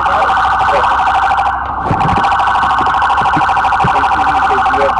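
Police patrol car siren sounding continuously in a fast, steady warble.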